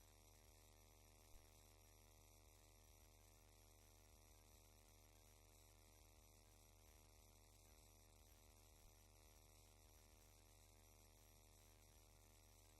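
Near silence: a faint, steady electrical mains hum with hiss, and one small click about a second in.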